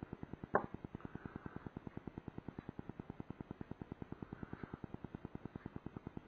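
A single sharp knock about half a second in, as a small glass lacquer bottle is set down on a wooden table. Behind it, a faint steady pulsing repeats about eight times a second.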